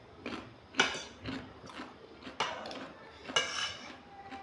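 Metal fork and spoon clinking and scraping against ceramic dinner plates: a string of short clinks, three of them louder than the rest.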